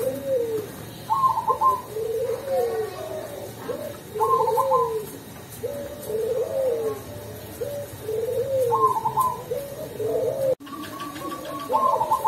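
A caged zebra dove (perkutut) cooing its song over and over. Each phrase opens with a short stuttering higher note and runs into several lower coos that rise and fall. The phrase comes four times, about every three to four seconds.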